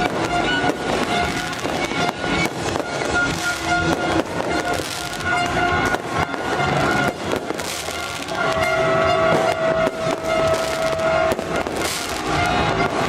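Fireworks cracking and popping in quick, irregular succession, over music with long held notes.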